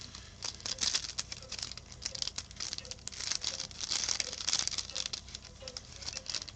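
Plastic wrapper crinkling and tearing, with cards and packaging rustling and clicking, as a pack of 2014 Topps Tier One baseball cards is opened by hand.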